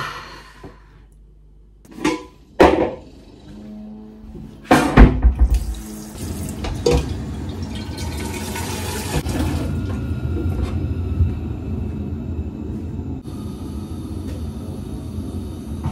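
Kitchen tap running into a large stainless steel pot, a steady rush of water that eases off near the end. A few knocks of the pot being handled come before it, the loudest about five seconds in.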